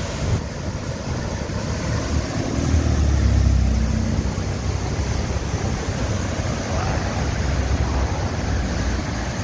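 Floodwater of a river in record flood running over a dam: a steady roar, with wind buffeting the microphone. A deeper rumble swells about two seconds in and fades again a couple of seconds later.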